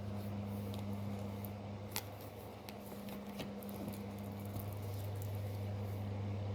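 Tarot cards being handled, a few light clicks and rustles of the cards, over a steady low hum.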